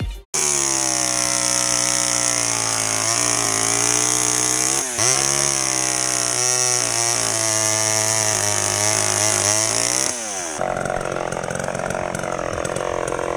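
A small engine running at a steady speed, with a brief dip in speed about five seconds in; near the end it gives way to a rougher, noisier sound.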